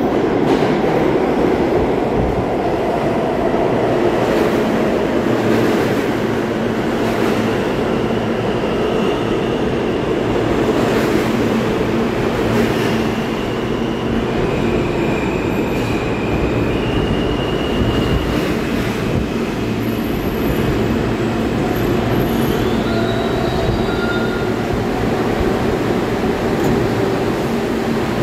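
R160A subway train pulling into the station and slowing to a stop, a loud steady rumble of steel wheels on the rails. High-pitched wheel squeals come and go through the middle and later part.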